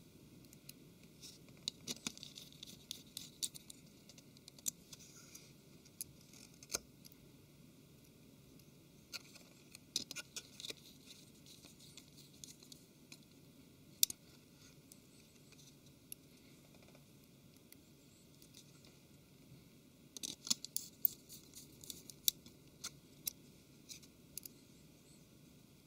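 Small, faint clicks and light scratching as a precision Phillips screwdriver picks up tiny screws and drives them into the tablet's mainboard and frame. The clicks come in clusters with quiet pauses between, and there is one sharper click about halfway through.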